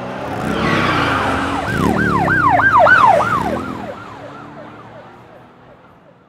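Police car siren in a fast yelping wail, about three sweeps a second, over the sound of a car going by; the siren fades away over the last couple of seconds.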